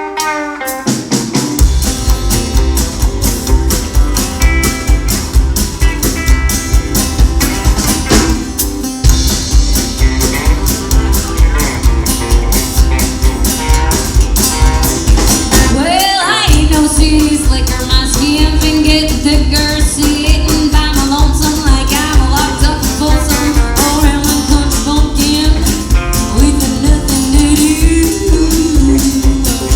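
A live band playing an upbeat rock-and-roll song with guitar, bass and drums. The full band comes in about a second and a half in and briefly stops twice, about 9 and 16 seconds in.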